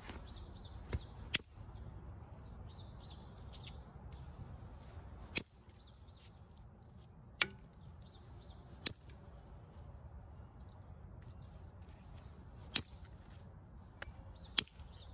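Knapping a jasper biface with a copper-tipped tool: about six sharp clicks at irregular intervals as flakes come off the stone edge. Small birds chirp in the background.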